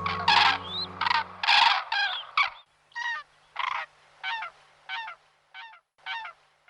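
A bird calling in a steady series of short, repeated calls about every 0.6 seconds, the later ones quieter, over background music that stops about a second and a half in.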